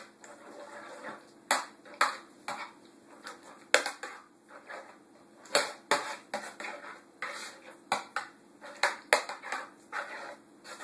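A utensil stirring ricotta cheese into thick meat sauce in a baking dish, with irregular clinks and knocks against the dish and short scraping sounds between them.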